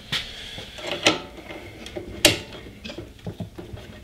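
Scattered metal clicks and clinks of a half-inch spanner working the negative lead's terminal nut inside an inverter welder's open case, the sharpest one a little over two seconds in and a few small ticks near the end.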